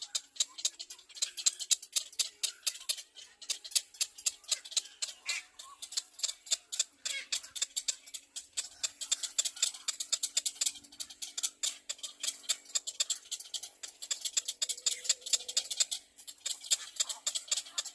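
Baby birds in the nest chirping rapidly and continuously, short sharp high-pitched calls several a second, typical begging calls of nestlings.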